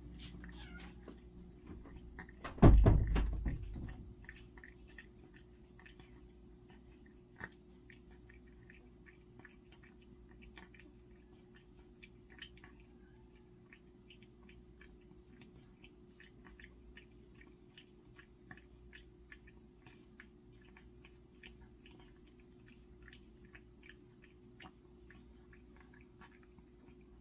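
A cat chewing and eating, with many small irregular clicks from its mouth, in the days after tooth-extraction surgery for stomatitis. There is one loud bump about three seconds in.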